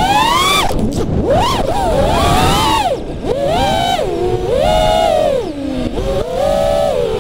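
FPV quadcopter's brushless motors and propellers whining, several close pitches together, swinging up and down with each throttle punch and chop, about once a second.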